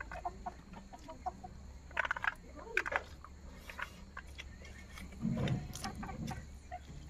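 Chickens clucking in short bursts, clustered about two seconds in and again just before three seconds, with a lower, longer sound a little past five seconds.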